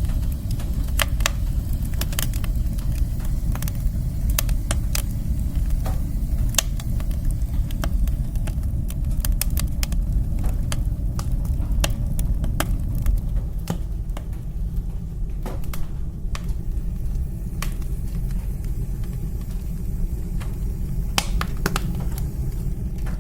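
Wood fire burning in a woodstove: a steady low rumble of flame and draught with irregular sharp crackles and pops from the burning wood, the pops thinning out in the second half.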